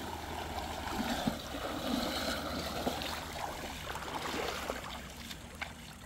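Rushing river water, a steady noise that eases a little near the end.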